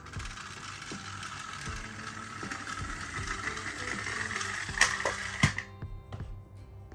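Plastic toy cars rolling down a plastic slide: a steady rushing whirr of small wheels on the track that stops about five and a half seconds in, just after two sharp plastic clicks. Background music plays underneath.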